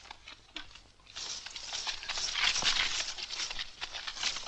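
A group of people's footsteps crunching and rustling through brush and undergrowth. A dense crackling of trampled leaves and twigs starts about a second in and is loudest in the middle.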